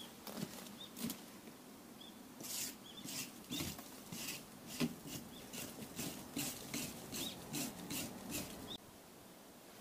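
A few footsteps through dry weeds, then a wire brush scrubbing moss off a concrete block wall: a steady run of short scratchy strokes, about three a second, that stops near the end.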